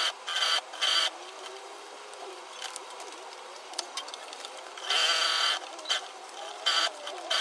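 Industrial sewing machine running in short stitching runs: a few brief runs at the start, a longer run about five seconds in, and short runs near the end. Fabric is handled between runs, with light taps and rustle.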